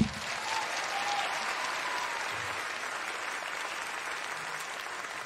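Studio audience applauding steadily, easing slightly near the end.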